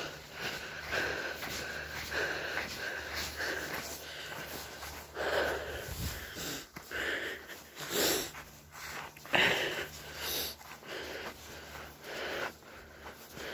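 A person's heavy breathing close to the microphone, loud breaths coming roughly once a second, over a steady low hum.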